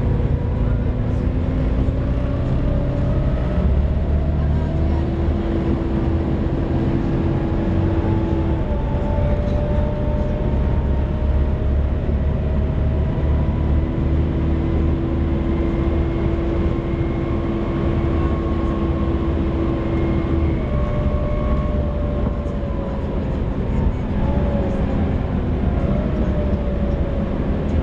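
Volvo B7TL double-decker bus under way, heard from the upper deck: diesel engine rumble whose note glides up and down with the road speed and gears. Over it comes the engine cooling fan's steady, hoover-like whine, once for a few seconds and again for several seconds later on.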